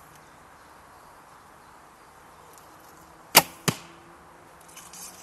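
White Feather Wingz Carbon horsebow shot: a sharp snap of the string on release, then a second, quieter smack about a third of a second later, the arrow striking the target.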